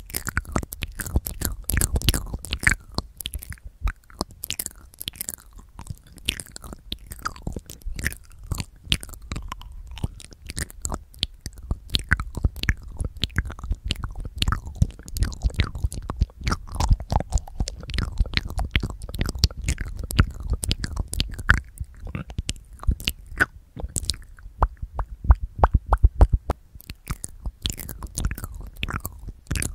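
Wet ASMR mouth sounds made with the lips and tongue directly on a handheld recorder's microphones: licking and smacking. They form a dense, irregular run of sharp wet clicks and smacks, with low thumps as the lips press against the mics.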